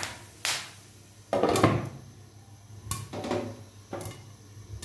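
Popcorn kernels popping in hot oil in a frying pan, a few separate sharp pops. About a second and a half in there is a louder clatter as a glass lid is set on the pan.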